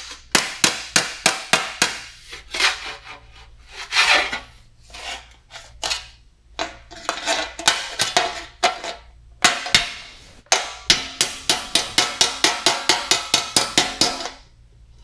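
Hammer blows on a sheet-metal cab corner panel resting on a sandbag: runs of quick, sharp taps, some ringing briefly, with one heavier blow about ten seconds in and a fast run of about five a second near the end. Between the runs there is scraping and rubbing as the panel is shifted on the bag.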